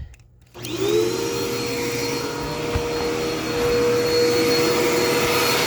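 Dirt Devil Endura Reach vacuum cleaner switched on about half a second in, its motor spinning up with a briefly rising whine and then running steadily.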